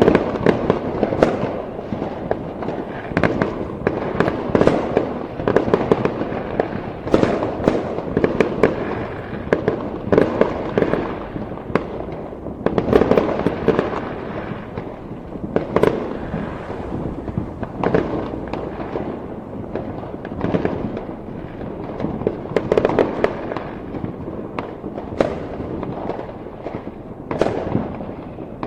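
Fireworks going off in a dense, continuous barrage: many overlapping bangs and crackles over a steady rumble of distant explosions, with no pause.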